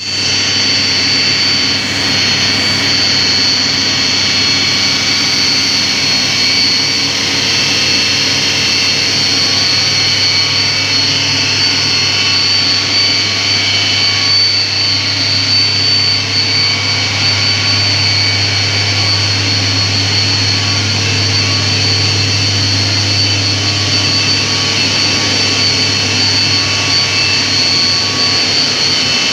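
Sugar-mill steam turbine driving a generator through a reduction gearbox, running steadily under power: a constant high-pitched whine over a deep, even hum.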